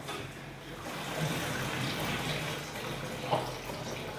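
Water sloshing and splashing as hands wash rice in a pot of water, with one light knock about three seconds in.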